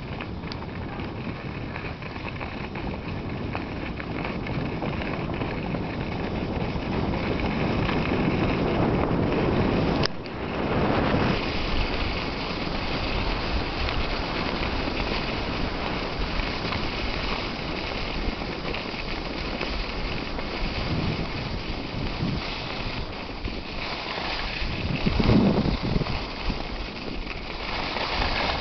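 Wind rushing over the microphone during a downhill run on a snowy ski slope, mixed with the hiss of sliding over snow. It grows louder over the first ten seconds as speed builds, breaks off briefly, and comes back with a few louder gusts near the end.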